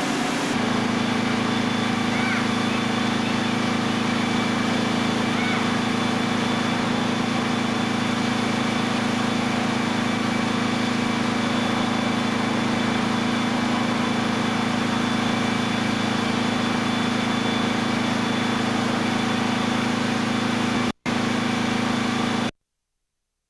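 Fire truck engine running at a steady high idle, a constant drone with an even hiss over it. It drops out for an instant near the end, then cuts off suddenly.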